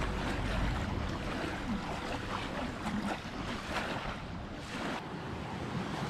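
Small waves lapping and breaking on a sandy lakeshore, with gusts of wind rumbling on the microphone.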